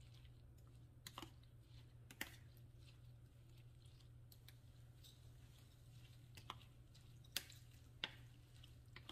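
Faint stirring of a wet curry-powder paste with a metal spoon in a bowl, with a few light clicks of the spoon against the bowl over a low steady hum.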